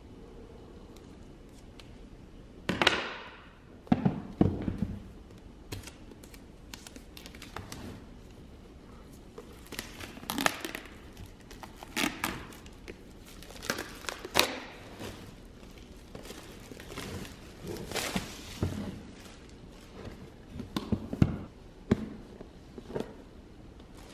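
Unboxing noises from an AirPods Max retail box: irregular crinkling and tearing of the wrapping, with cardboard rustles and light knocks as the box is handled, and the lid lifted off near the end.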